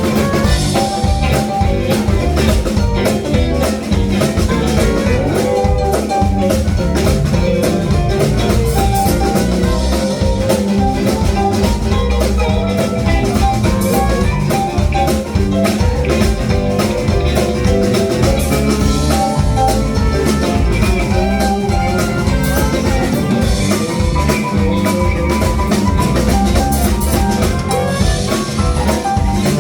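Live blues band playing an instrumental break with no vocals: drums and bass under a lead melody line, guitar-led.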